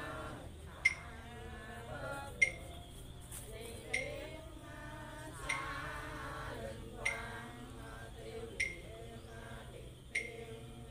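Voices chanting a Vietnamese funeral rite in slow unison, with a sharp struck note with a brief ring about every one and a half seconds keeping time.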